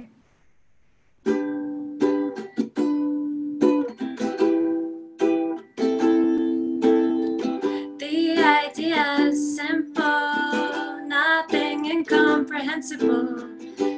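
Ukulele strumming chords, starting about a second in, with a woman's singing voice joining over the strums about eight seconds in.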